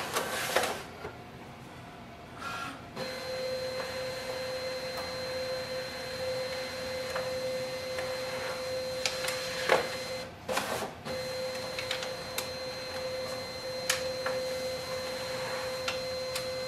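Brother MFC-L2730DW laser all-in-one's automatic document feeder drawing two pages through its scanner: a steady motor whine with a held tone that starts about three seconds in, with a short break and a few clicks about two-thirds of the way through, between the pages.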